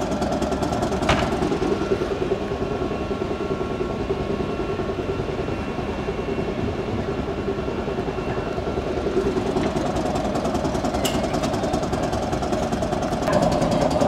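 A 1919 Birney streetcar's machinery running steadily with a fast, even mechanical pulse, growing louder near the end.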